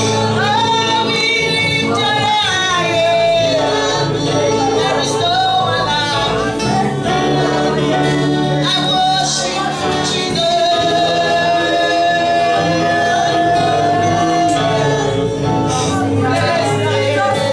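Gospel worship song: voices singing together over band accompaniment with a steady beat.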